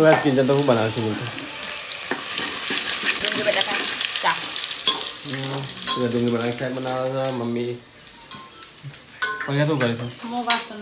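Food frying in hot oil in a steel pot, sizzling steadily while a ladle stirs it. The sizzle drops away about eight seconds in.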